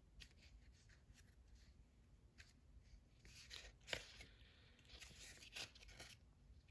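Near silence with faint rustles and small clicks of paper as a picture book's pages are handled, the sharpest click about four seconds in.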